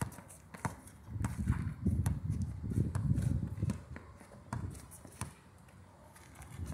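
Basketball bouncing on an asphalt court as it is dribbled, sharp thuds at uneven intervals, with players' footsteps.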